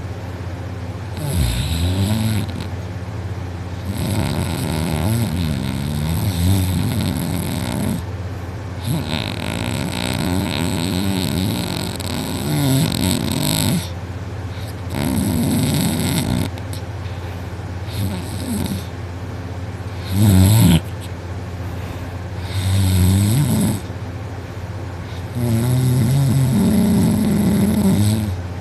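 A person snoring heavily in deep sleep, with the throat fully relaxed: a run of snores a few seconds apart, some long and some short, their pitch wavering up and down. A short snore about twenty seconds in is the loudest.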